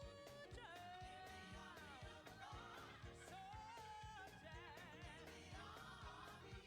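Gospel music, fairly quiet: a lead voice sings held notes with vibrato and slides over a band, with drums keeping a steady beat.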